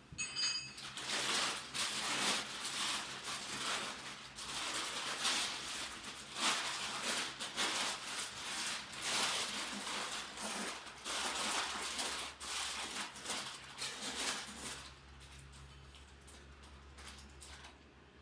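Plastic rustling and crinkling as it is handled and fastened with a zip tie, with a short ratcheting zip near the start. The handling noise stops about fifteen seconds in, leaving a low steady hum.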